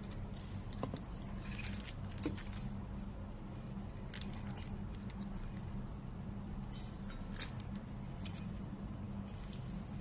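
Light handling clicks and rustles as a wooden chromatic kalimba is turned over in the hands, a few at a time around two, four and seven seconds in, over a steady low hum.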